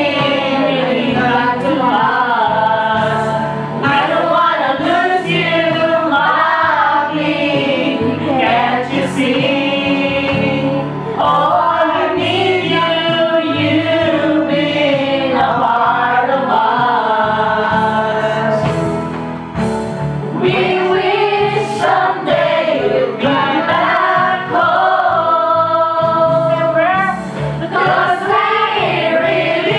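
A group of men and women singing a song together, one of them into a microphone, over steady musical accompaniment.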